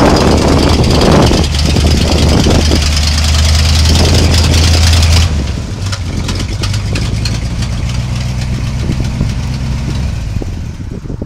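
1976 Ford F600 truck engine idling with a steady low note; about five seconds in it drops suddenly to a quieter, lower-pitched idle.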